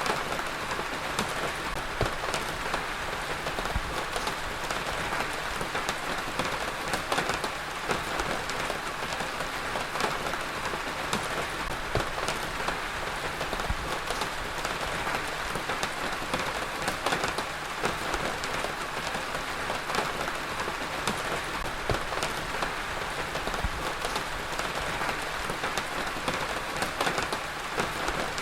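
Heavy rain falling steadily on a surface, a dense even hiss with many separate drops spattering through it.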